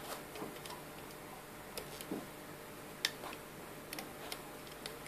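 Scattered light plastic clicks and ticks of a plastic hook lifting rubber bands over the pegs of a plastic bracelet loom, the sharpest about three seconds in.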